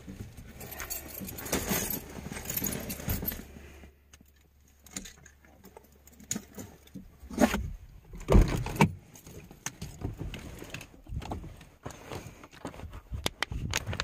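Van engine idling with a low steady hum that cuts out about seven seconds in. Then a run of clicks, knocks and rattles, the loudest knock about eight seconds in, as the van's door is opened near the end.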